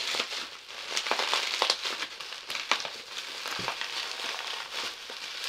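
Plastic bubble wrap crinkling and rustling as it is pulled and torn at by hand, with many small sharp clicks. The wrap is tough and resists tearing.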